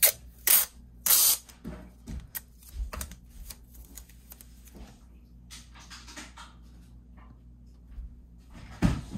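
Masking tape being pulled off the roll in a few short, sharp rips within the first second and a half, the longest lasting about a third of a second. Light rustling and taps follow, then another sharp sound near the end.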